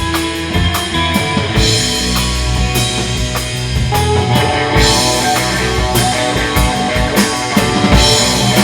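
Rock band playing live: drum kit with cymbal crashes over sustained electric guitar and bass.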